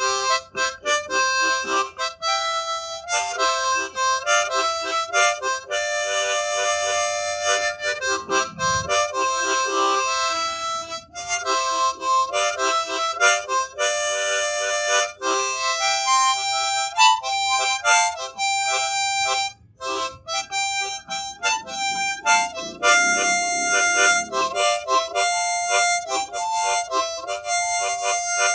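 Harmonica playing a melody of held notes, each rich in overtones, with brief breaks about eight and twenty seconds in.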